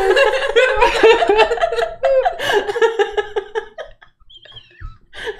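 A group of people laughing hard, loud pulsing laughter that trails off about four seconds in.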